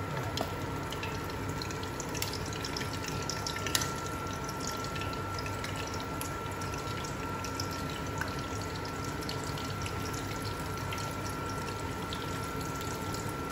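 Breaded fish fillets frying in hot oil in a frying pan: a steady sizzle with scattered small crackles and pops.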